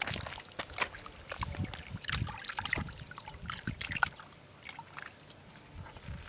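Hands digging and squelching in wet river mud and shallow water, with irregular wet clicks, splashes and trickling. It is busiest for the first four seconds, then quieter.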